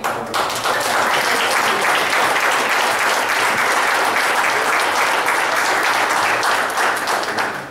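Church congregation applauding: a steady burst of clapping that starts sharply just after the opening and dies away at the end.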